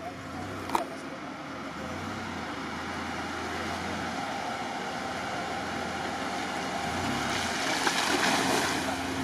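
A Mitsubishi Pajero SUV creeps through a muddy, puddled track at low engine revs, its tyres working through mud and water. It gets louder as it comes close, with the hiss of tyres and water rising near the end. A short sharp click comes about a second in.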